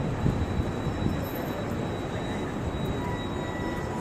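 Steady city street background noise: a low, even rumble of distant traffic with no single sound standing out.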